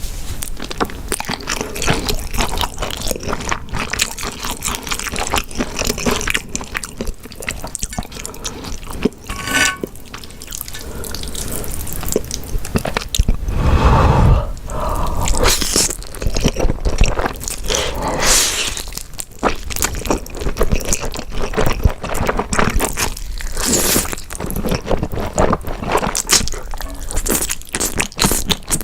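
Close-miked eating sounds: wet chewing, mouth smacking and slurping of food, a dense run of small wet clicks with a louder, fuller slurp about halfway through.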